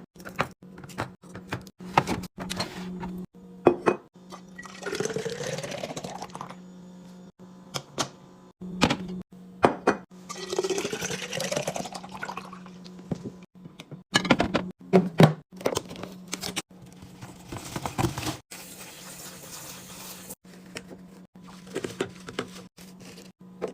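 Liquid poured into a container twice, each pour lasting about two seconds, with the pitch rising as the container fills. Sharp clicks and knocks of containers being handled and set down come throughout, over a steady low hum.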